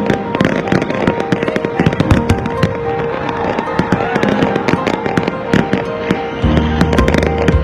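Fireworks crackling and banging in rapid, dense succession, many sharp reports close together. Music with steady held notes plays underneath, and a deep bass line comes in near the end.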